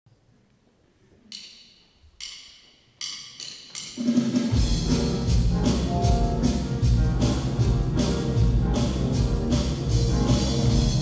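A gospel band's song intro: a few sharp, ringing hits count in, two slow and then three quick, and about four seconds in the band starts together with bass, electric guitar and drums playing a steady beat.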